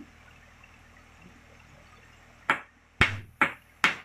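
Hammer driving a nail into a wooden plank: four sharp blows a little under half a second apart, starting about two and a half seconds in.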